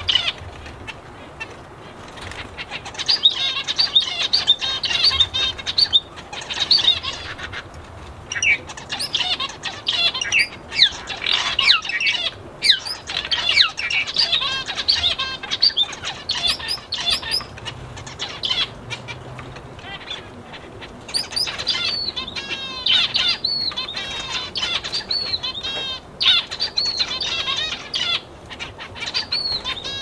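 A mixed flock of small aviary birds chirping and calling over one another in a dense, continuous chorus, with quick runs of repeated chirps about two-thirds of the way through.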